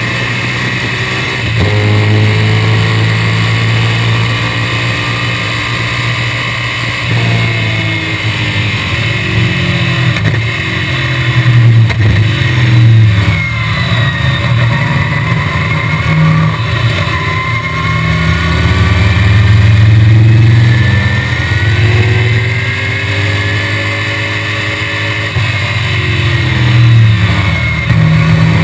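Small-block Chevrolet V8 of a 1965 BTM Cheetah roadster at racing speed, heard from its open cockpit: the engine note climbs and drops repeatedly as it shifts gears, brakes and accelerates through corners.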